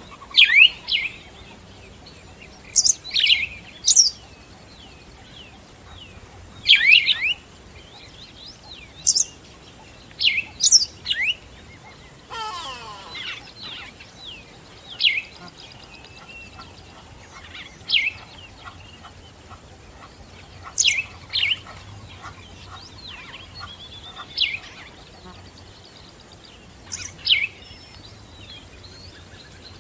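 Songbirds chirping: short, sharp, falling chirps repeated every second or two, with a longer sound sweeping down in pitch about twelve seconds in.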